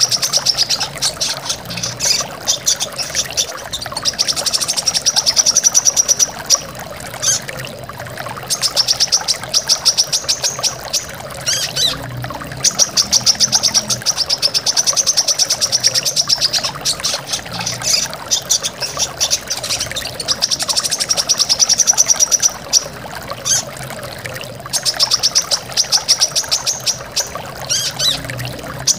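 Brown-throated sunbird singing in rapid, high trills of two or three seconds each, repeated with short breaks, over the steady rush of a waterfall.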